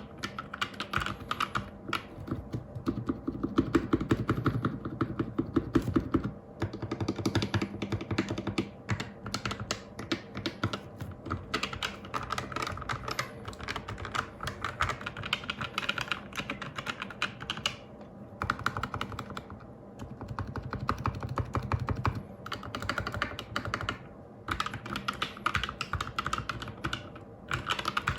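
Fast typing on an A4tech Bloody B820R mechanical keyboard with red linear switches, lubricated and fitted with switch films. Dense key clicks come in spells of several seconds with short pauses between them.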